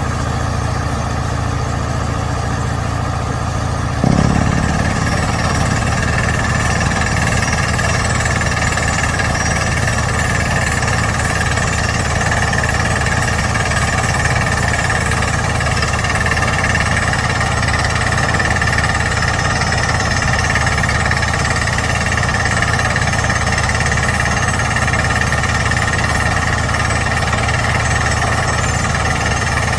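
KY120 rock drilling rig hammering as it drills into rock. The percussive drilling cuts in suddenly about four seconds in, over the running machine, and then goes on steadily.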